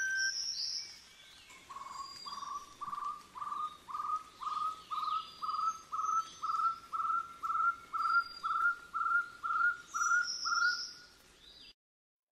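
A bird calling a steady series of short rising notes, about two a second, the series creeping slowly higher in pitch, with fainter high chirps from other birds; the sound cuts off suddenly near the end.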